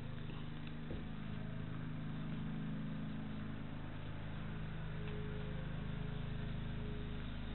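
Steady low hum from a motor or appliance, with a couple of faint knocks about a second in.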